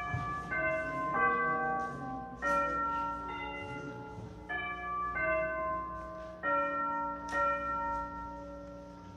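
Bell chimes ringing a slow succession of struck notes and chords, each left to ring into the next, fading near the end.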